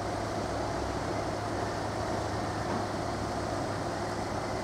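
A Southeastern Class 377 electric multiple unit approaching along the track, making a steady running hum.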